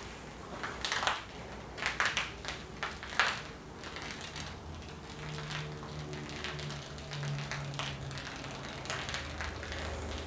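Water poured from a watering can onto a foam-covered rug, with irregular crackling clicks that are densest in the first few seconds.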